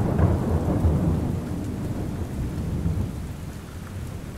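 Rolling thunder over steady rain, the deep rumble loudest in the first second or so and then dying away.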